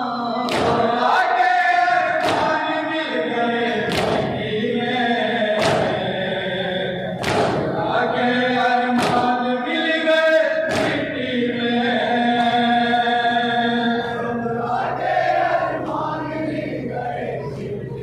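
A group of men chanting a noha, a Shia lament, in chorus over a loudspeaker. Rhythmic matam, hands striking chests, comes in time about every second and a half to two seconds through the first part, then stops while the chant goes on.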